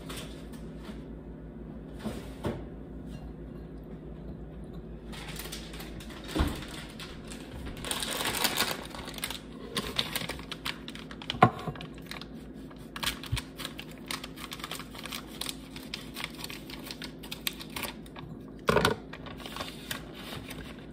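Scattered light clicks, taps and rustles of hands placing olive slices onto a pizza in a foil-lined pan, with a few louder knocks, over a steady low hum.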